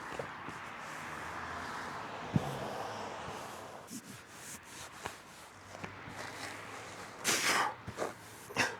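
Carpet being pressed and smoothed by hand onto a van's ceiling panel: soft rustling and scraping of the fabric, with a few light knocks and a brief louder hiss about seven seconds in.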